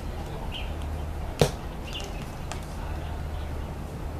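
A football kicked once: a single sharp thud about a second and a half in, over a steady low rumble.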